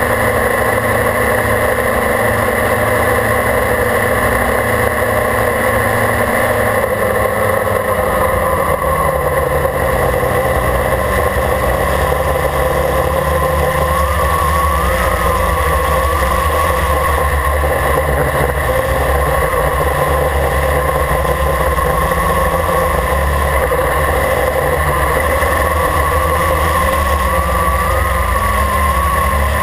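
Quadcopter's electric motors and propellers running steadily close to the microphone, a loud whine over a low rumble. The pitch wavers slightly about halfway through and again near the end as the craft manoeuvres.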